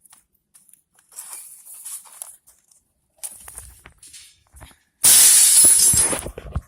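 Dry leaves rustling and crackling as they are handled, in two short stretches, then a much louder, longer burst of crunching rustle close to the microphone near the end.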